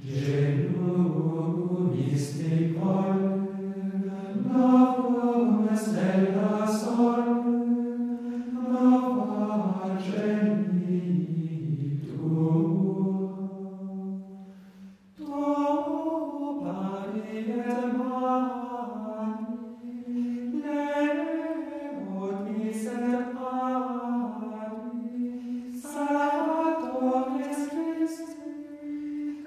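Slow sacred choral singing, holding long sustained notes, with a short break about halfway through.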